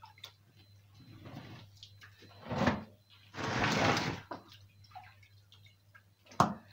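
Water splashing and sloshing in a bucket as catfish are rinsed by hand, in short bursts, with the longest splash about three and a half seconds in. A sharp knock near the end.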